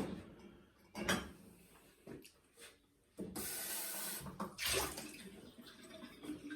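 Water running or pouring for about a second and a half, between a few short, sudden sounds.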